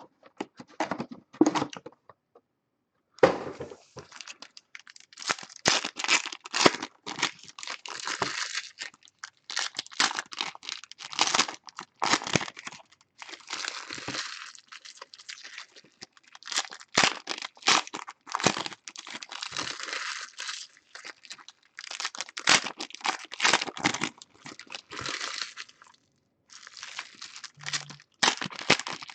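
Baseball card packs from a box of Panini Prizm being torn open, their foil wrappers ripping and crinkling in irregular clusters of crackles, with a short pause about two seconds in.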